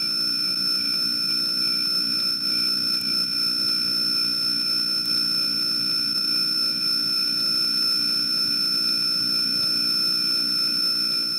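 Insect soundscape: a steady buzz like a swarm of flying insects, with continuous high-pitched whining tones held above it.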